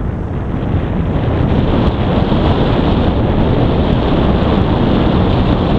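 Wind buffeting the microphone as the rider speeds up to about top speed on a Solowheel electric unicycle. It rises over the first second, then holds at a steady loud rush.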